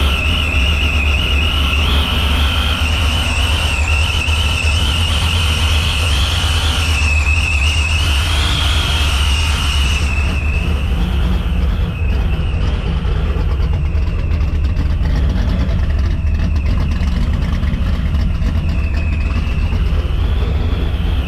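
Supercharged 427 small-block Ford V8 with a Vortech YSI supercharger running, a heavy low rumble under a high supercharger whine that wavers up and down in pitch.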